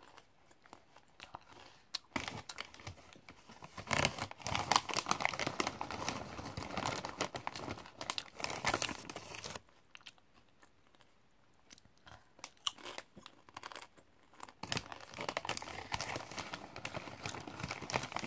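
Crunchy popcorn-studded tortilla chips being chewed, mixed with a snack bag crinkling as a hand reaches into it. The crackling comes in two long spells, the second starting a little after two-thirds of the way in.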